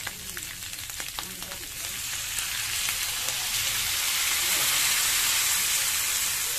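Hot wok sizzling as ginger tuak (rice wine) is poured over frying meat. Scattered crackles in the first couple of seconds give way to a hiss that swells and grows loudest near the end as more liquid hits the hot pan.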